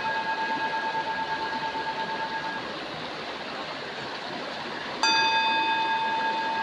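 Metal singing bowl struck and ringing, its tone wavering slightly as it slowly fades, then struck again about five seconds in and ringing out fresh.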